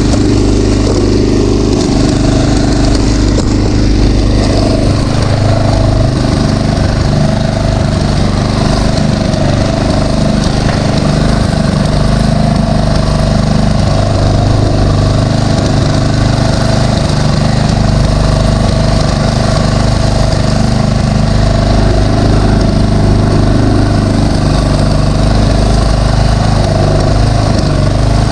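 Tiller's small engine running steadily as it cuts a trench.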